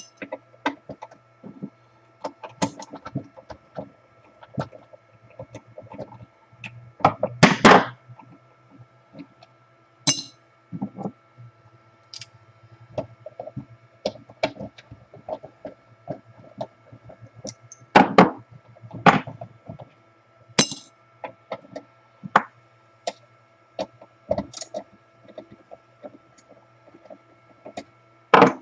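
Irregular knocks and clinks of metal band-saw parts and hand tools being handled and set down while a Milwaukee portable band saw is taken apart, over a faint steady hum. The loudest clatter comes about a third of the way in and again near two-thirds.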